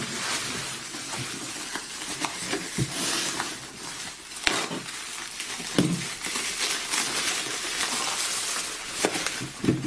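Bubble wrap crinkling and rustling as a taped bundle is handled, slit open with a utility knife and unwrapped, with a few sharp clicks and taps among the crackle.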